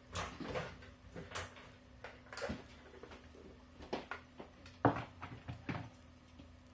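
Scattered clicks, knocks and rustling as a screwdriver set is fetched and handled, the sharpest knock about five seconds in, over a faint steady hum.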